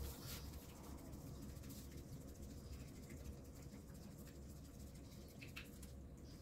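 Faint, steady low hum with a few soft, short ticks, about once near the start and again near the end.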